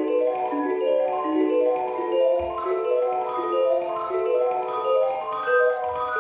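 Background music: a light melody of short, evenly paced notes.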